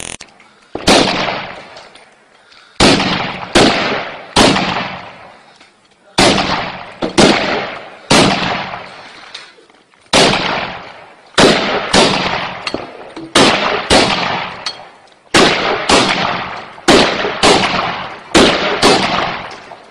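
Gunfire: about twenty single shots, each a sharp crack that rings out in a long echo. They come in loose clusters a half-second to a second apart, with short pauses between the clusters.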